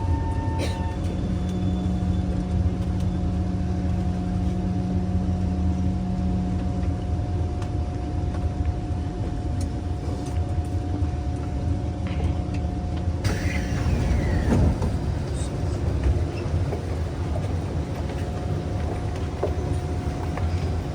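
Kawasaki C151 metro train running between stations, heard from inside the car: a steady low rumble with humming motor tones. About 13 seconds in the sound turns brighter and hissier, with a brief gliding tone.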